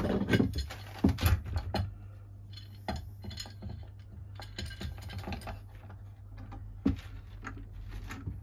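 Steel G-clamps clinking and knocking as one is picked up from the pile on the bench and set on the board, then light ticks and rattles as its sliding T-bar handle is turned to wind the screw down. One sharp knock about seven seconds in.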